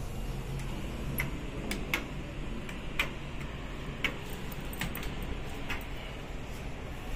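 Sharp clicks of an OTIS elevator car's push buttons being pressed, about seven at irregular intervals, over a low steady hum.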